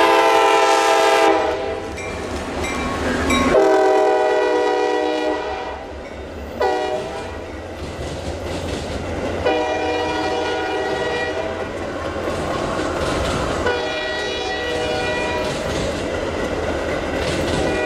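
Locomotive air horn sounding the grade-crossing signal: two long blasts, a short one, then a final long blast held on to the end, over the low rumble of the train.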